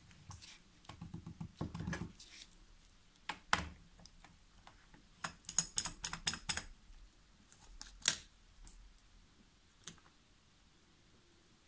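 Small sharp clicks, taps and plastic crinkling from a wristwatch being handled in a case holder while its clear protective film is peeled off, with a cluster of crackly ticks about six seconds in and one loud click about eight seconds in.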